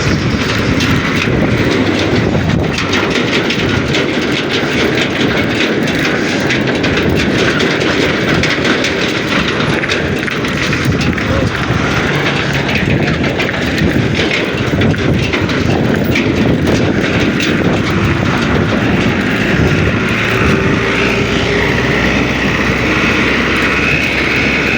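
Tractor engine running steadily close by, mixed with a loud rush of wind over the microphone as the bicycle overtakes it.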